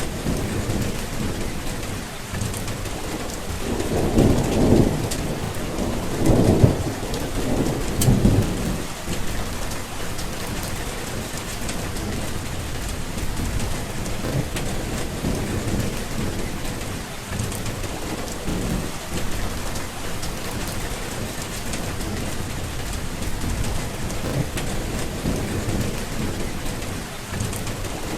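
Steady heavy rain falling, with rolls of thunder rumbling through it, strongest about four to eight seconds in and again near the end.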